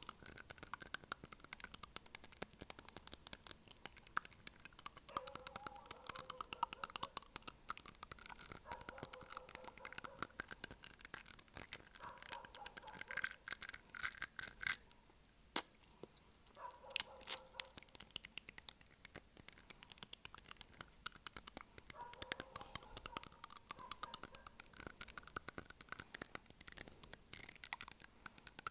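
Acrylic fingernails tapping rapidly on front teeth close to a microphone: a fast run of small clicks, with a short pause about halfway through.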